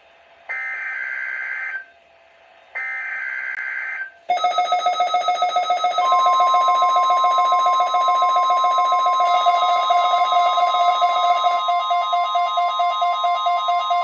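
NOAA Weather Radio SAME data header: two buzzy, warbling data bursts, each a little over a second long, with short gaps between them. About four seconds in, an electronic alarm starts beeping rapidly, about four times a second. From about six seconds in, the steady single-pitch 1050 Hz weather radio warning alarm tone sounds over it.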